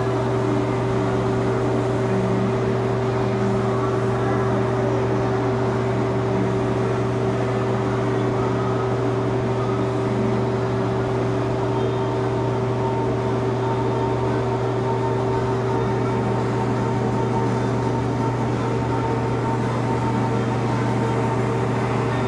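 Steady machine hum of paint-booth spraying equipment running: a constant low drone with a fixed higher tone above it and an even airy hiss, unchanging throughout.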